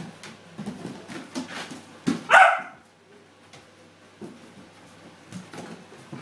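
Springer spaniel puppy giving a single short bark about two seconds in, with a few light taps and scuffs around it.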